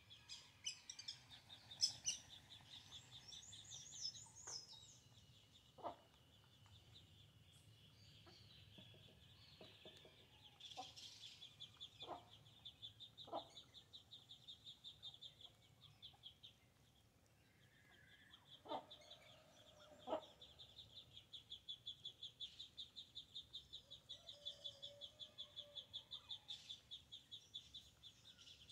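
Faint farmyard sounds: hens clucking softly now and then, with a few short chirps near the start. Behind them runs a steady high-pitched pulsing trill that drops out for a couple of seconds about two-thirds of the way through.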